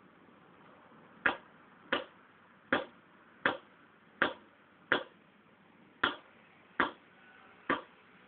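Paintball marker firing a steady string of nine sharp pops, about one shot every three-quarters of a second.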